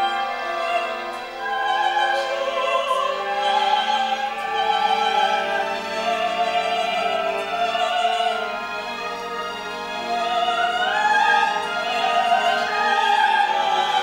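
A woman's high operatic voice sings with wide vibrato over sustained orchestral notes; the pitch rises a little about ten seconds in.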